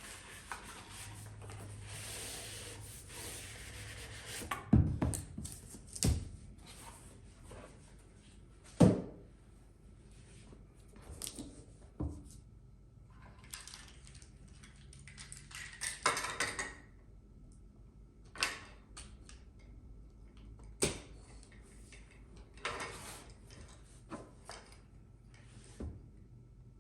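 Packaging being handled and opened by hand: a stretch of steady rustling at first, then short rustles and several sharp knocks, the loudest about five, six, nine and twenty-one seconds in.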